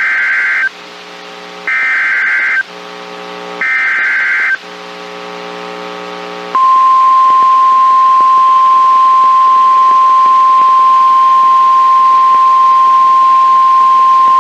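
Emergency Alert System alert from NOAA Weather Radio, received on a TFT EAS 911 receiver. It opens with three short warbling bursts of SAME digital header data about a second apart, with a low buzz between them. About six and a half seconds in, the steady single-pitch weather radio warning alarm tone starts. Together they announce a new warning, here a severe thunderstorm warning.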